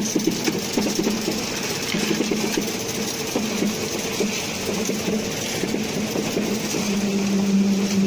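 Engine of a mobile concrete mixer pump truck running while it pumps concrete through the delivery pipe, a steady hum with uneven pulsing; about seven seconds in the hum steadies and grows louder.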